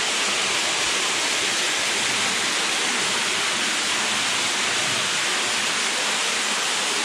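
Steady rush of water from a small waterfall inside the cave, an even hiss-like noise with no change in level.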